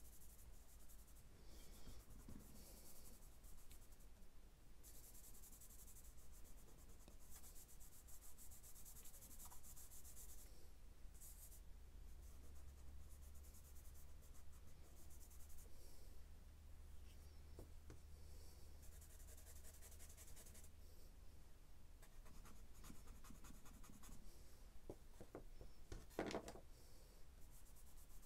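Charcoal stick scratching and hand rubbing across sketchbook paper as charcoal marks are drawn and smudged, faint, with a brief knock about two seconds before the end.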